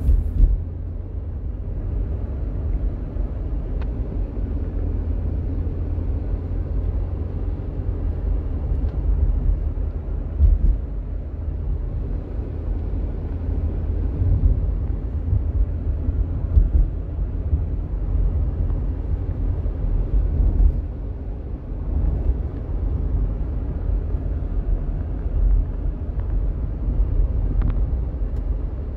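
Steady low rumble of a car driving, tyre and engine noise heard from inside the cabin.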